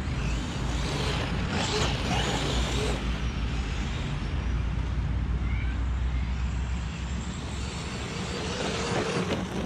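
Traxxas Maxx 4S RC monster truck with a Surpass 4076 2200 kV brushless motor driving across sandy gravel, its motor whine rising and falling faintly a few times over a steady low rumble.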